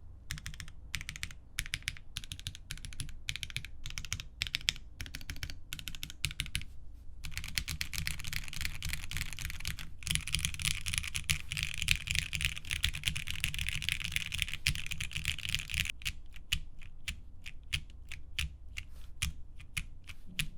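Typing on a Whi65 prototype mechanical keyboard with an aluminum case, a gasket-mounted polycarbonate plate and lubed and filmed Alpaca v2 linear switches. Short bursts of keystrokes come first, then about nine seconds of fast continuous typing from about seven seconds in, then slower single key presses near the end.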